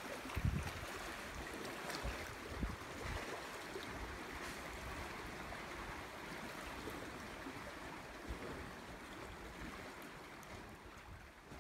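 Seawater washing and lapping among coral rocks, a steady rushing wash with a few low thumps in the first seconds, fading out toward the end.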